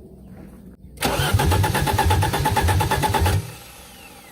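1984 Audi 4000 Quattro's inline five-cylinder engine being started with the exhaust disconnected: about a second in it bursts into a loud, rapid pulsing for a little over two seconds, then cuts off suddenly.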